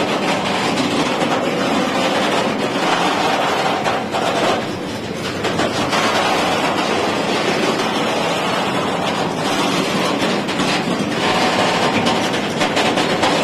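Freight train's flat wagons rolling slowly past close by: a steady rumble of steel wheels on the rails, with faint irregular clicks.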